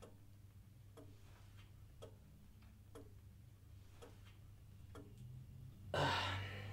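Clock ticking steadily in an awkward silence, then a person sighs heavily near the end.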